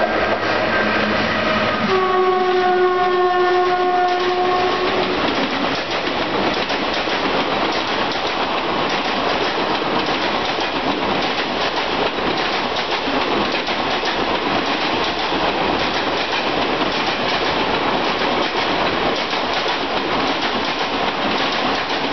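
Electric locomotive's horn blasting twice, the second blast about three seconds long, followed by the steady rush and clickety-clack of its express passenger coaches running past.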